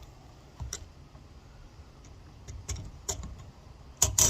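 Scattered light clicks and knocks from handling an AR-15 rifle as it is checked over, with a sharper pair of clicks near the end.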